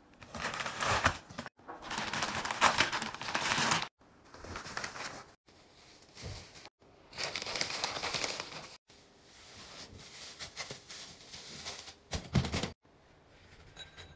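Plastic wrapping and disposable diapers crinkling as they are handled, in short stretches broken off abruptly several times.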